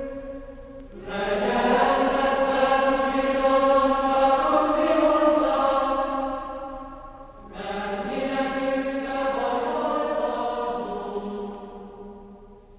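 Choir singing a slow chant in two long phrases of held notes. The first begins about a second in, and the second follows a short break and fades toward the end.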